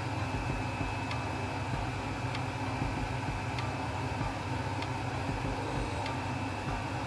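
Steady hiss and rumble of a gas stove burner under a lidded wok that is steaming as its contents cook, with a light sharp tick repeating evenly about every 1.2 seconds.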